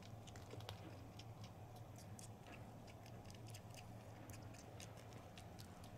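Faint, quick wet clicks of a kitten suckling on another cat's fur, over a steady low hum.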